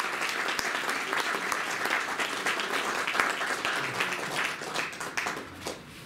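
Audience applauding, the clapping thinning and fading near the end.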